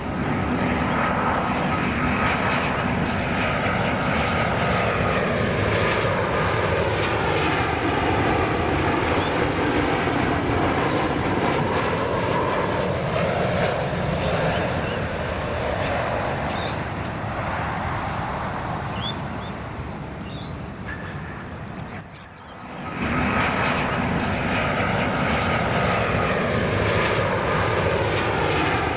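Boeing 737-800 airliners' CFM56 turbofan engines on landing approach. The steady jet rumble carries a thin whine and a slow sweeping, phasing rush as the aircraft passes. About three-quarters of the way through the sound drops away briefly, and the same kind of jet noise from a second landing 737-800 takes over.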